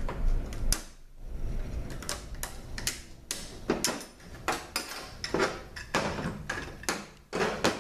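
Irregular run of sharp metallic clicks and clinks as a pick pries a snap ring out of an automatic transmission's clutch drum and the steel ring and drum knock against a steel workbench.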